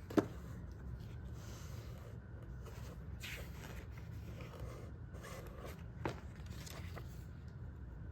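Unboxing handling sounds: a keyboard box and its packaging being moved and opened, with rustling and scraping. There is a sharp knock just after the start, a smaller one about six seconds in, and a steady low hum underneath throughout.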